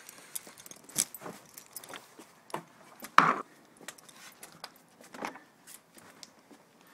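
Metal rings and clips on a small dog's collar and leash jingling and clinking as the dog is handled. There are scattered clicks throughout, and one louder short sound about three seconds in.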